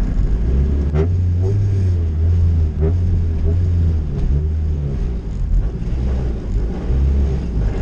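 Honda CRX on the move, heard from inside the cabin: a heavy low drivetrain rumble that swells and dips, with a few sharp knocks. It comes from a badly worn manual transmission grinding under load, which the owner takes for a shot input bearing, typically with the gears not meshing properly.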